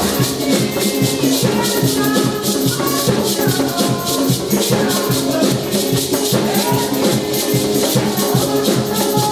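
Lively praise-and-worship music: a steady, fast percussion beat with drums under voices singing into microphones.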